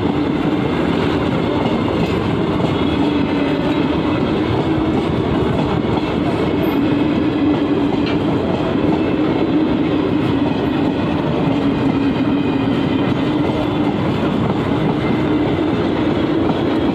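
Indian Railways passenger coaches running past at close range, a steady noise of wheels on rails that neither rises nor falls.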